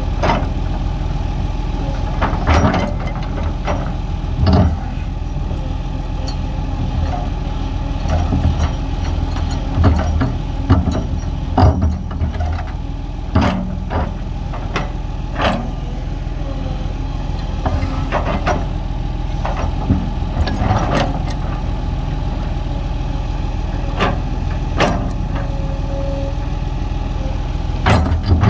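Heavy earth-moving machine's diesel engine running steadily, with sharp knocks every second or two at irregular intervals.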